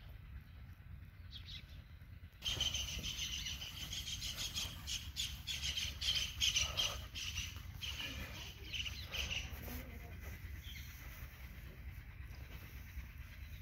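A busy chorus of small birds chirping and twittering. It starts abruptly about two and a half seconds in and thins out after about ten seconds, over a steady low rumble.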